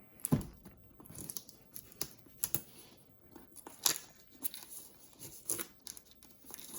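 Product packaging being opened by hand: irregular tearing and crinkling with sharp crackles and snaps.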